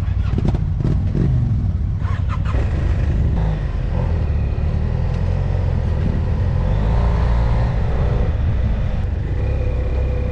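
Motorcycle engine running as the bike rides off at low speed: a steady low rumble, with the engine note rising and falling a little.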